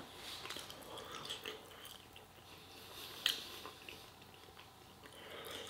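Faint chewing: a man eating a mouthful of food, with soft small mouth clicks and one sharper click about three seconds in.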